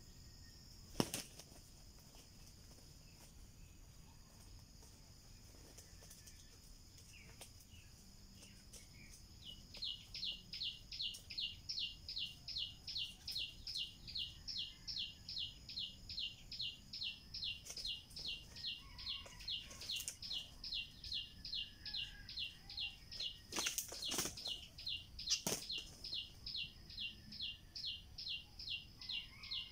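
A high call repeated rapidly and evenly, two to three short falling notes a second, starting about ten seconds in over a faint steady high hum. A few sharp clicks stand out, the loudest near the start.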